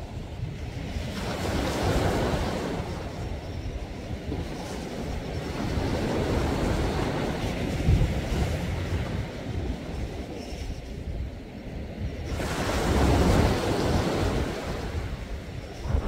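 Sea waves washing in, with the surf swelling about a second in and again about twelve seconds in. Wind gusts rumble on the microphone underneath.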